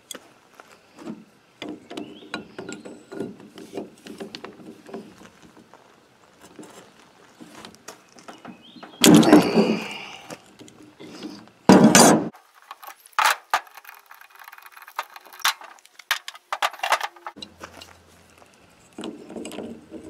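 Adjustable wrenches clinking, knocking and scraping against the metal housing of an excavator pilot control joystick as it is taken apart. Two louder clatters come about nine and twelve seconds in.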